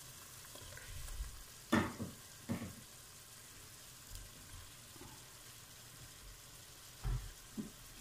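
Squid rings and prawns sizzling gently in a stainless steel pot, with a few short knocks as whole raw prawns are added by hand.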